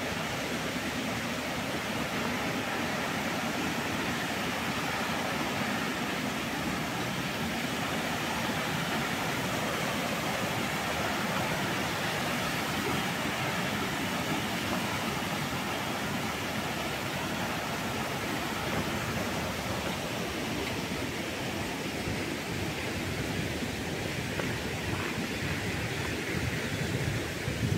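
A steady rushing noise, even and without any rhythm, with a brief louder surge just before the end.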